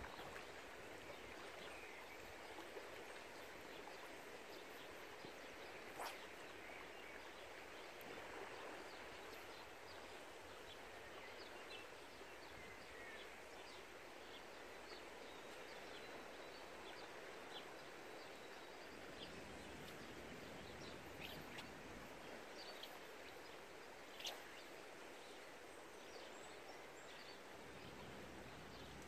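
Faint, steady rush of a flowing river, with scattered faint bird chirps and a sharp click about six seconds in and another later on.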